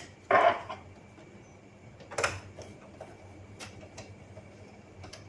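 Screwdriver and screw clicking and scraping against the printer's plastic and metal parts as a screw is fitted into the carriage assembly, in a few short separate clicks, the loudest just after the start and about two seconds in.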